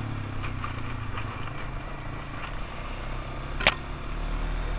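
ATV engine running steadily at low revs, with one sharp knock about three and a half seconds in.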